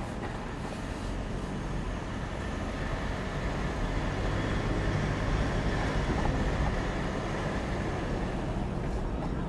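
Cabin noise of a pickup truck driving on an unpaved dirt road: a steady rumble of engine and tyres that swells slightly in the middle.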